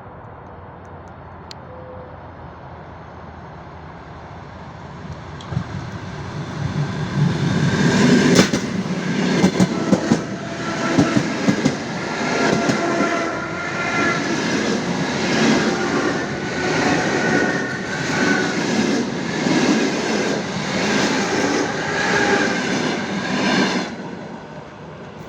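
Railway train running past on the track: a rumble builds up over a few seconds into loud, rapid clickety-clack of wheels over the rail joints, with some metallic ringing, then drops away suddenly near the end.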